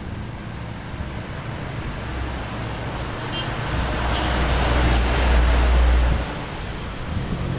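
Engine running steadily, swelling louder over a couple of seconds in the middle, then dropping back abruptly.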